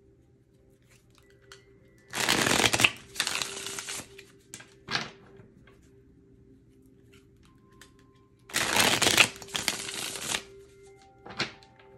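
A deck of oracle cards being shuffled by hand. There are two bouts of shuffling about six seconds apart, each about two seconds long, and each followed a second later by a short snap of the cards.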